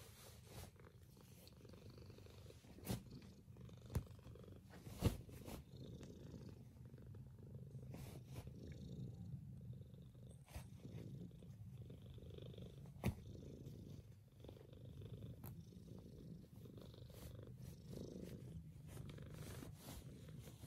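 Tortoiseshell Maine Coon cat purring steadily with a low hum. Three sharp clicks come between about three and five seconds in, and one more about thirteen seconds in.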